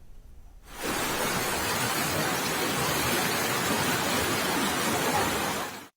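Steady hiss of rushing water from heavy rain and flooding. It starts about a second in and cuts off suddenly near the end.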